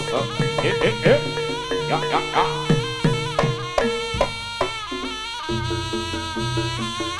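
Javanese jaranan gamelan music: a reedy wind melody with sliding, ornamented notes over sustained metallophone tones and repeated struck notes. The low accompaniment changes about five and a half seconds in.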